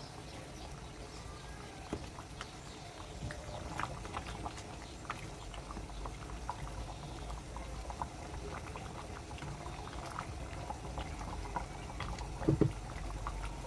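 Pot of banga (palm-nut) soup bubbling while a wooden spatula stirs it gently, with small wet clicks and plops and one louder knock near the end.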